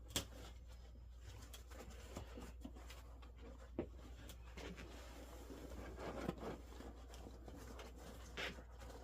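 Hand handling of a car seat's upholstery: scratchy rustling of fabric and padding, with a few sharp clicks and knocks scattered through.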